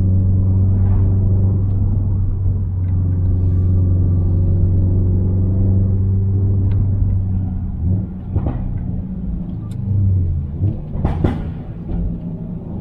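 Subaru WRX STi's turbocharged 2.5-litre EJ257 boxer engine with a muffler-deleted exhaust, holding a steady engine speed for about seven seconds, then easing off the throttle with two sharp exhaust pops near the end, from its pops-and-bangs tune.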